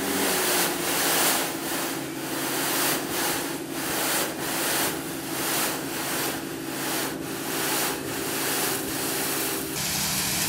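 A dump trailer's raised bed unloading a load of sand-and-gravel concrete mix: a hissing rush of aggregate sliding off in repeated surges over the steady hum of a motor, likely the trailer's hydraulic pump, which cuts off near the end.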